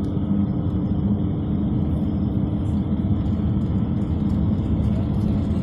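Steady low rumble of a vehicle in motion, with a constant low hum running through it.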